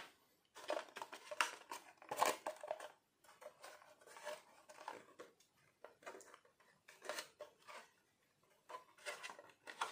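Hard plastic body shell of a Xiaomi 1/16 scale Suzuki Jimny RC crawler being handled and turned over in the hands: irregular light clicks, taps and scrapes.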